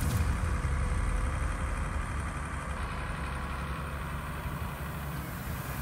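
Heavy wheeled tractor's diesel engine running steadily under load while wading through deep muddy water.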